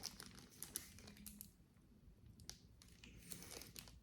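Near silence with a few faint, scattered clicks and light rustles from handling jewelry and its packaging.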